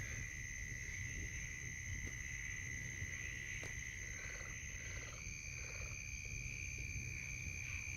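Night insects, crickets, trilling steadily at a high pitch, the main trill stepping slightly higher about five seconds in, over a faint low rumble.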